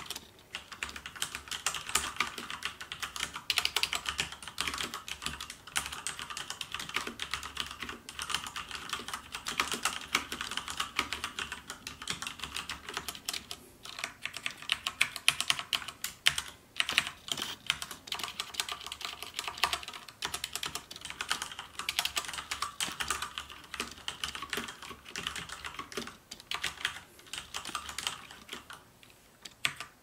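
Fast, continuous typing on an MSI GK80 mechanical gaming keyboard with Cherry MX Red linear switches: a dense clatter of keystrokes with a few brief pauses, stopping just before the end.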